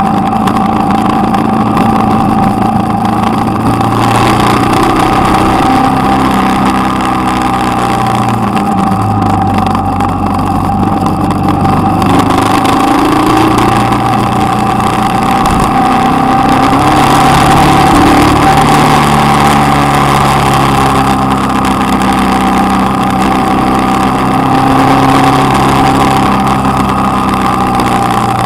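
Motorcycle engine running under way, its pitch stepping up and down with throttle and gear changes, with rushing wind and a steady whine over it, heard from a camera on the bike.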